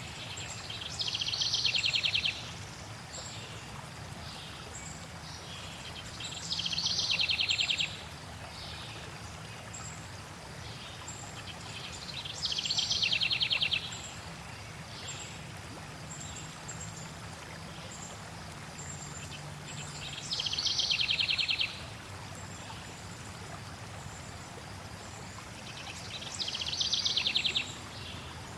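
A songbird singing a rapid, buzzy trill five times, about every six seconds, with short high chirps from other birds between, over a steady rush of flowing water.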